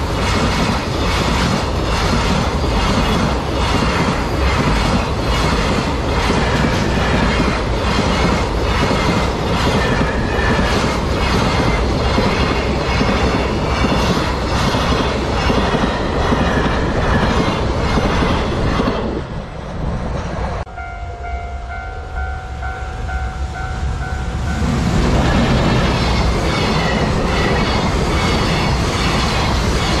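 Container freight wagons rush past at close range, their wheels clacking in a steady rhythm over the rail joints. About two-thirds of the way through, the sound cuts to a few seconds of a level crossing warning bell ringing in repeated dings, and then a second freight train's wagons pass just as loudly.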